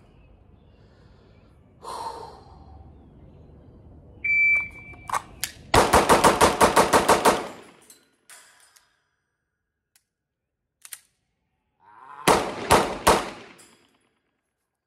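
A shot-timer beep, then a Staccato CS 9mm pistol firing a fast string of about ten shots. A pause of several seconds follows, then three more quick shots.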